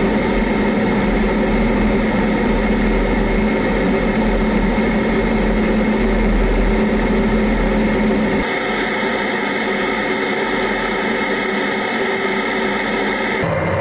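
Steady in-cockpit noise of an F-15 fighter jet in flight: engine and airflow running loud and even, with a steady hum through it. The sound changes abruptly about eight seconds in and again near the end.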